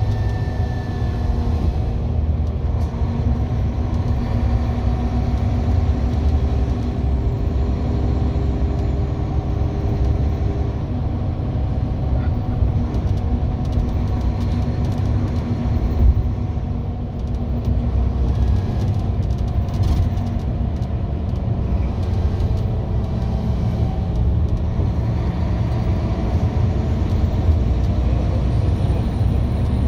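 Steady engine and road rumble heard from inside a moving road vehicle, with a few steady engine hums over the low roar. There is one brief knock about halfway through.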